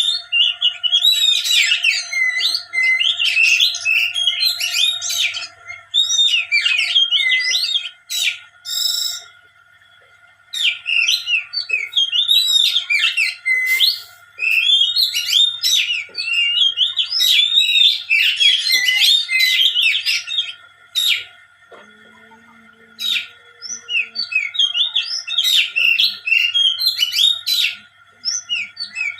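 Caged songbird singing long runs of rapid, varied chirping phrases, broken by short pauses, over a faint steady whine.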